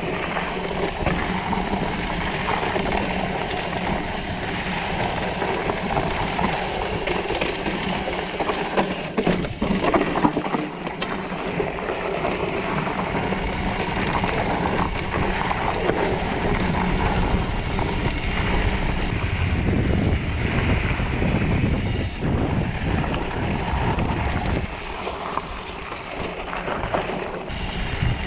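Rigid mountain bike rolling fast down a dirt singletrack: tyres rumbling over dirt and rocks, with knocks and rattles from bumps, and wind buffeting the action camera's microphone.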